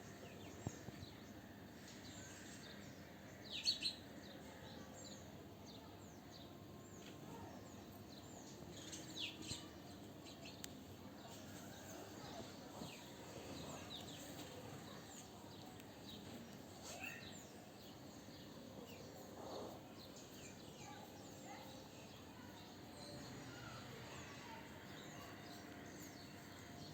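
Faint background hum with scattered bird chirps, short high calls now and then, a couple of them a little louder about four and nine seconds in.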